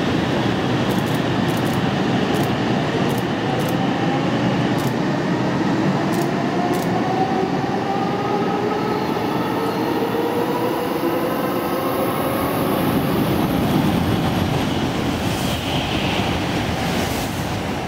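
Kyushu Shinkansen 800 series high-speed train pulling out of the station, its traction motors whining and rising in pitch as it gathers speed. Near the end a second Shinkansen train rushes past at speed.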